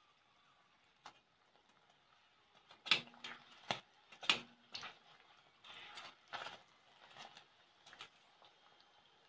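Metal kitchen tongs clicking and knocking against a frying pan as a paratha is turned and pressed in hot oil: one tap about a second in, then about a dozen quick, irregular clicks through the middle, over a faint hiss of frying oil.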